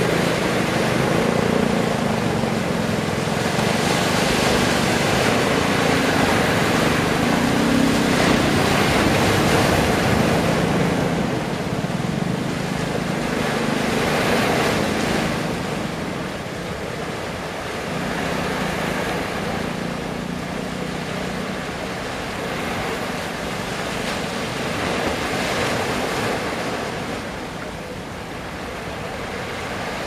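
Heavy surf breaking and washing in, swelling and ebbing every few seconds, with the steady low drone of a fishing boat's engine underneath that fades out about two-thirds of the way through.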